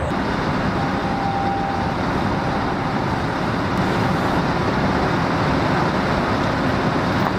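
Engine of a loader machine running steadily while its boom lifts a strapped cupola base.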